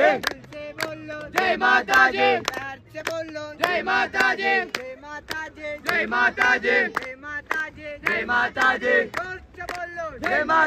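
A group of voices chanting devotional phrases to the goddess, one short sung phrase about every two seconds, with sharp clicks keeping time.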